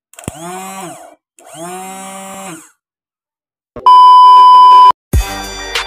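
Two drawn-out, voice-like calls, then a loud, steady electronic beep tone lasting about a second, with music starting just after it near the end.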